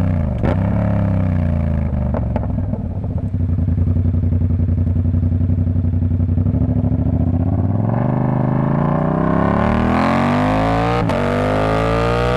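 Yamaha R7's 689 cc parallel-twin engine through a TOCE exhaust with the dB killer removed, running at a steady low speed, then accelerating with its note rising steadily, with a brief break near the end as it shifts gear.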